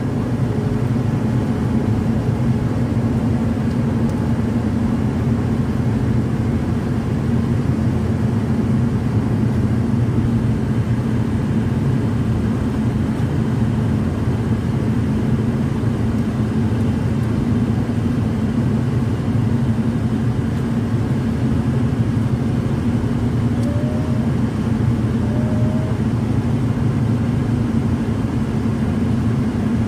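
Steady low drone of tyre and engine noise inside a car's cabin while driving at motorway speed.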